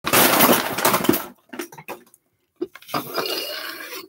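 Small objects and plastic-packaged items being swept by hand across and off a wooden tabletop: a dense rustling clatter for about a second, a few separate knocks, then another stretch of rustling and clinking near the end.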